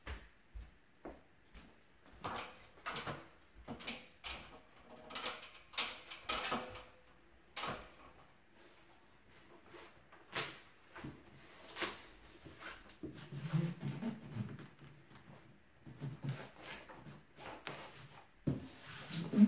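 Stiff self-adhesive wallpaper being handled and pressed onto a ceiling: irregular crackling, rustling and light knocks of the paper and its roll.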